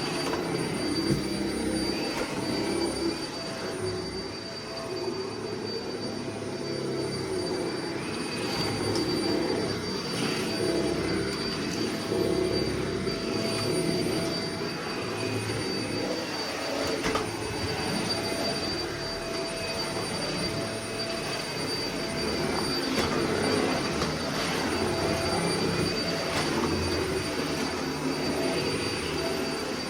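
Vacuum cleaner running steadily with a high motor whine. Its lower rushing sound swells and dips as it is pushed back and forth over the floor.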